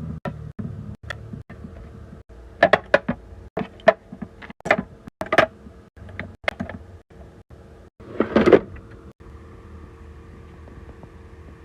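Skincare bottles and jars being handled and set down: a run of sharp clicks and knocks, then a short rustle about eight seconds in, followed by a faint steady hum.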